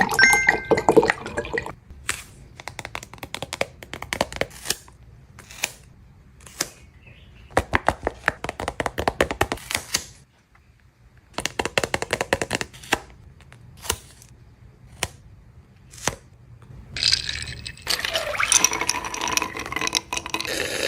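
Paper crinkling and crackling in quick bursts of clicks as paper blind bags are handled and opened, with short pauses between the bursts.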